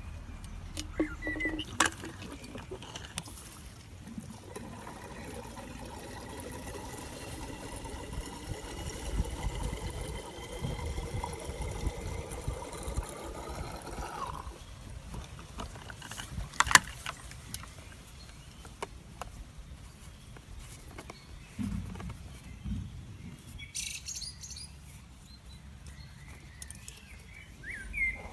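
Fuel running into a chainsaw's tank from a quick-fill canister, its note rising steadily in pitch for about ten seconds as the tank fills, then stopping abruptly when the tank is full. A single sharp click follows a couple of seconds later.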